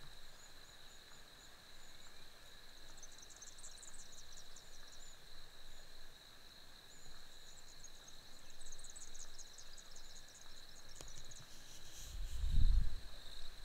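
Evening insect chorus in grassland: a steady high drone, with two runs of rapid, very high chirping. A low rumble comes in near the end.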